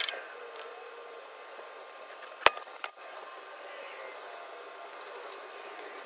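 A few sharp plastic clicks, the loudest about two and a half seconds in, as blue tap-splice connectors are pressed and snapped shut over wires in a mower's wiring harness, over a steady hiss.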